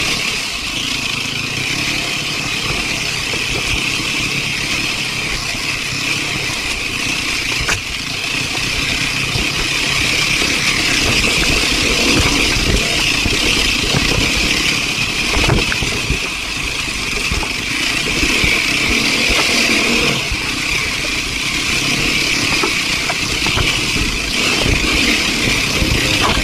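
Dirt bike engine running.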